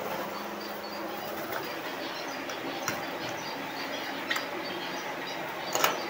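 Small aviary finches chirping in scattered short calls over a steady hum, with a few sharp metal clicks from a door bolt latch and padlock being fastened, the loudest near the end.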